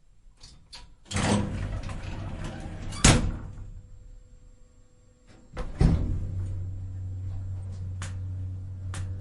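Elevator: after a few light clicks, the sliding doors run and shut with a sharp thud about three seconds in. A second thud comes near six seconds, then a steady low hum as the car travels, with a few light clicks over it.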